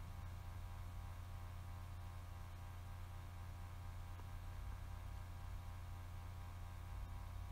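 Steady low electrical hum with a thin buzz of overtones above it, unchanging throughout.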